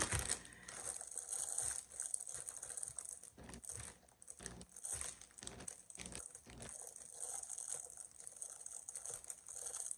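Crinkly iridescent cellophane gift wrap crackling as it is handled and pulled open, with many small crackles one after another.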